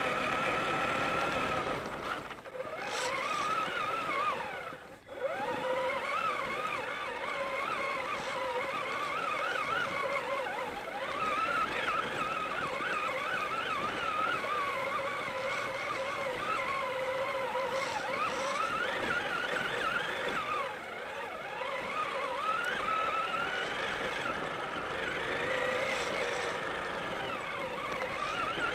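Traxxas Summit RC truck's electric motor and drivetrain whining, the pitch rising and falling with the throttle, easing off about two seconds in and cutting out briefly about five seconds in before picking up again.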